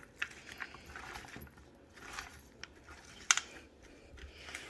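Can opener working on a can of tomato paste: faint, irregular metal clicks and scraping, with one sharper click a little past the middle.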